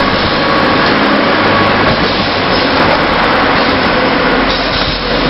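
Automatic plastic cup sealing machine running, a steady mechanical noise with a low hum.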